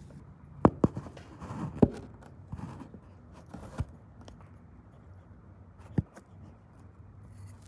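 Handling noise close to the microphone: a few sharp clicks and knocks, two quick ones under a second in, another near two seconds, and a last one about six seconds in, as the phone is touched and checked.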